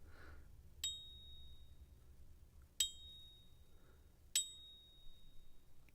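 Silver bullion ping test: a .999 silver bar is struck lightly three times, and each strike leaves a clear, high, bell-like ring that hangs for over a second. The long, clean ring is the sign of solid fine silver.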